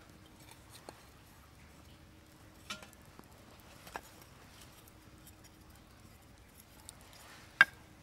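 A handful of scattered sharp clicks and knocks over a faint steady hum, with a much louder single crack near the end.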